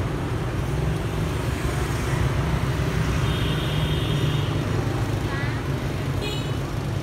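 Street traffic, a steady low rumble, with a few brief higher tones around the middle and near the end.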